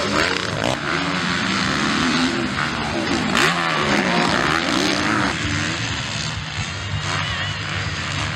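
Several motocross bikes racing, their engines revving so that the pitch keeps rising and falling. After about five seconds the engines turn lower and steadier.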